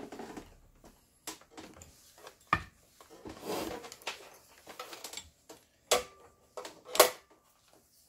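A few separate sharp clicks and knocks from handling a sewing machine and its foot pedal, the loudest about seven seconds in, with a short rustle about three and a half seconds in. The machine's motor is not running.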